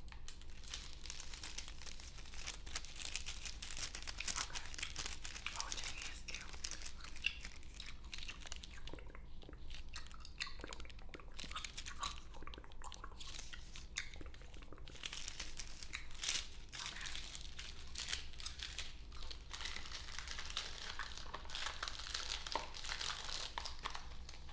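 Close-miked ASMR crackle: a dense, unbroken run of small clicks and crinkles.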